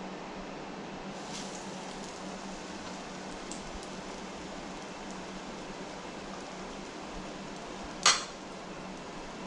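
Breaded crappie chunks frying in hot oil, a steady sizzle, with one sharp click about eight seconds in.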